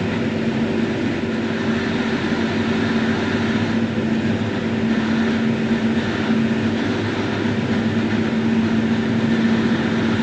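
Farm tractor's diesel engine running steadily, with a constant hum and no change in speed.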